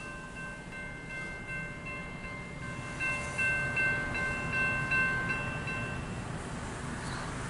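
Railroad grade-crossing warning bell ringing in rapid regular strokes, fading out about six seconds in, over a low steady rumble.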